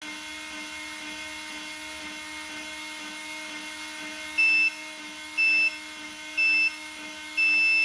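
Fight-start countdown signal: three short electronic beeps about a second apart, then one longer beep marking the start, over a steady electric hum with a faint high whine.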